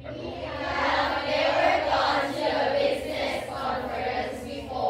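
A class of students reading a sentence aloud together in unison, many voices chanting the same words at once: a choral repetition drill, "We have never gone to a business conference before, so we want to go to one."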